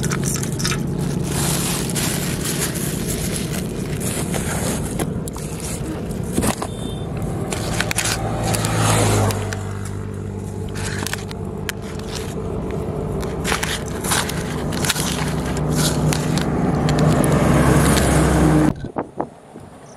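Hands scraping, squeezing and crumbling a flour-based bait mix in a steel bowl, giving many short gritty scrapes and crackles. Under them runs a steady low mechanical hum like a nearby engine, which cuts off shortly before the end.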